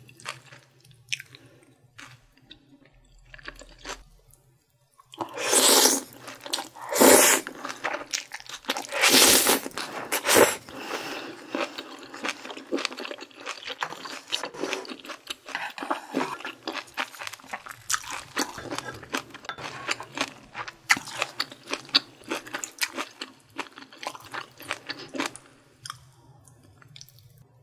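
Close-miked eating of bulgogi beef. It starts fairly quiet, then has a few loud wet mouth bursts about a fifth to a third of the way in, then steady, rapid chewing that fades near the end.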